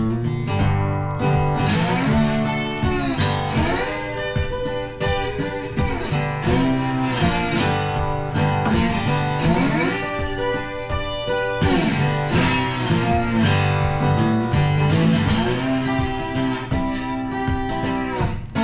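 Guitar-led music with a steady bass line and notes that slide in pitch.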